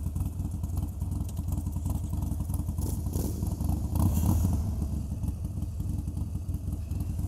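Harley-Davidson Sportster Forty-Eight's air-cooled V-twin idling with a steady low, lumpy beat, swelling briefly about four seconds in.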